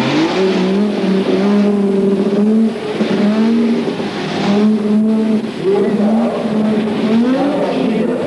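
Rally car engine revving up and down as the car is braked and accelerated through a slalom, the pitch rising and falling several times, with tyre hiss from the wet road.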